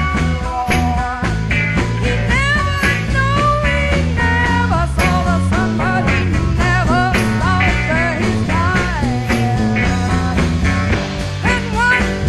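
Live psychedelic rock band playing an instrumental passage: electric lead guitar bending and sliding notes over a busy bass line and drums.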